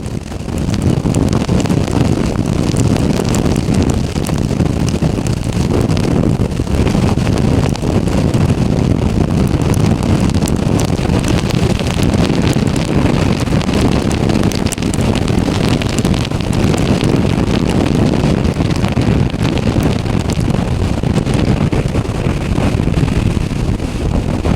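Hurricane-force wind buffeting the microphone: a loud, steady, low rumble with crackling gusts.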